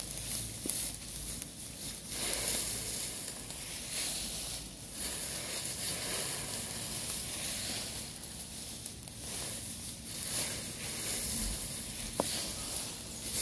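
Smouldering pile of dry leaves and yard debris burning, with a steady hissing crackle and a single faint click near the end.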